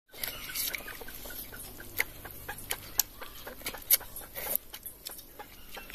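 Domestic chickens clucking in the background, with scattered sharp clicks and smacks of people biting and chewing fried chicken legs.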